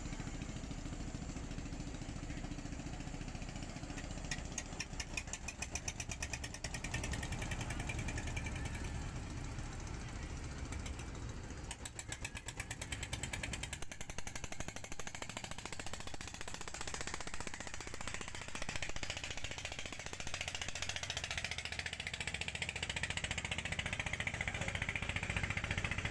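A small river boat's engine running steadily, with stretches of rapid, even knocking pulses.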